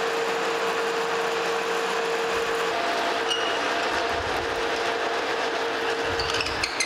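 Metal lathe turning slowly while a 13/16-inch twist drill cuts into a spinning metal workpiece, opening up a 3/8-inch pilot hole: a steady machine-and-cutting noise with a steady tone. Near the end the tone stops and a quick run of sharp clicks and ticks follows.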